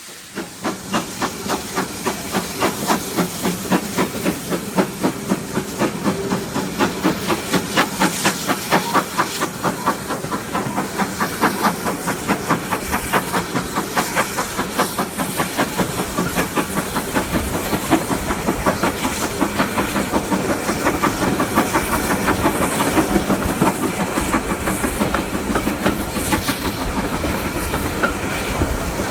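Steam locomotive No. 9351, a GWR-style 2-6-0, working hard with a quick, even exhaust beat and steam hiss, over the clickety-clack of its carriages on the rails. The beats stand out sharply at first and blur into a steadier rush in the second half.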